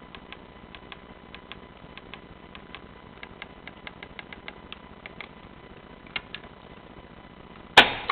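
Miele Prisma W850 washing machine giving a run of light, irregular clicks, several a second, then one loud short knock or clunk near the end.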